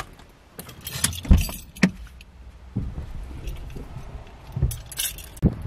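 Car driving along a road, heard from inside the cabin: a low road rumble with a handful of thumps and rattles, the loudest a little over a second in.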